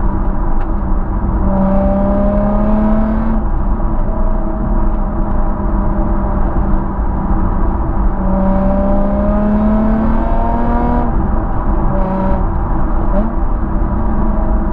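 Nissan 350Z's 3.5-litre V6 through a Scorpion non-resonated cat-back exhaust with Y-pipe and high-flow sports cats, pulling under load twice with the pitch rising steadily and a harsher rasp each time, and droning steadily while cruising in between. Wind and road rumble run underneath.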